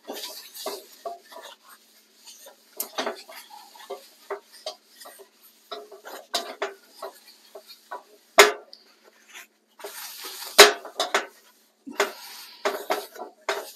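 Paper towel scrubbing around the inside of a carbon steel wok, an irregular run of short rubbing scrapes, with the metal wok clanking against the stove grate, two sharper knocks in the second half.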